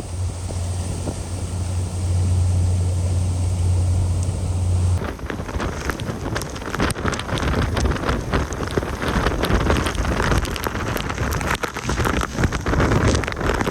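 Typhoon-force wind buffeting the microphone with a deep, steady rumble. About five seconds in, the sound changes abruptly to gusting storm wind with rain and spray spattering in fast, irregular crackles.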